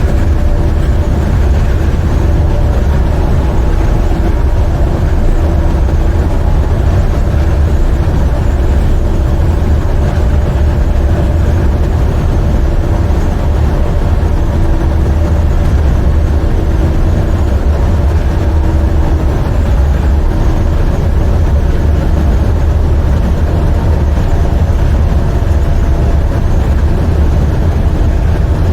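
Semi truck's diesel engine (an International with a MaxxForce 13) and road noise heard from inside the cab while driving: a steady low drone with faint humming tones over it.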